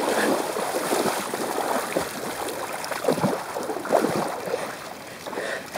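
Muddy pond water splashing and sloshing around a man's legs as he wades out with heavy steps, louder at first and easing off toward the end.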